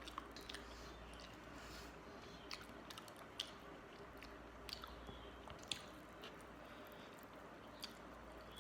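Close-up eating of watery fermented rice (panta bhat): soft wet chewing and squelching with scattered small mouth clicks and smacks at irregular moments.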